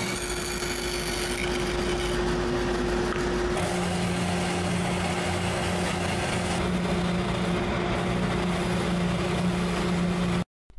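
Bandsaw running as it cuts through plywood. About three and a half seconds in, the sound changes to an oscillating spindle sander running steadily while it sands the plywood's curved edge, and it cuts off abruptly just before the end.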